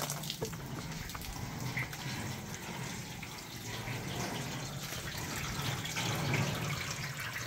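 Water from a garden hose running over a roof into new metal rain gutters, trickling and dripping off them in a steady wash of water sound.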